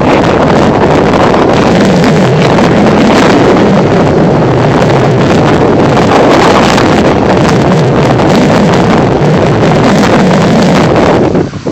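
Loud, steady wind rushing over a phone's microphone, with a brief drop near the end.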